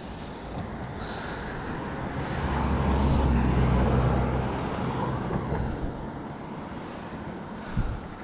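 A motor vehicle's engine passes by, its low hum swelling a couple of seconds in and fading again, over a steady high buzz of crickets. A dull thump comes near the end.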